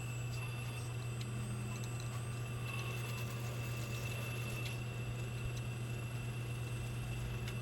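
Small electric hydraulic pump of a scale RC excavator running steadily: a constant low hum with a thin high-pitched whine above it.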